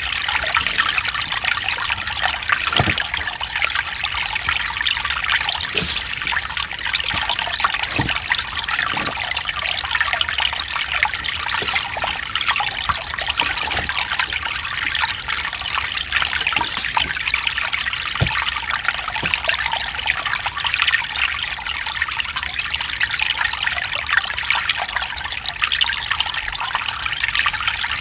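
Mountain stream running steadily over rocks, a continuous babble and trickle of water, with the odd brief deeper plop.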